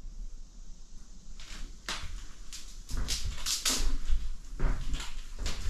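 Footsteps and scuffing on a wooden cabin floor: an irregular run of short scuffs and low thuds that starts about a second and a half in.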